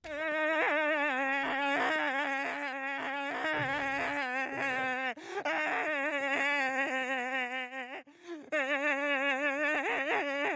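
A cartoon man's voice holding a long, wavering wail with a strong, even vibrato, breaking off twice, about five and eight seconds in.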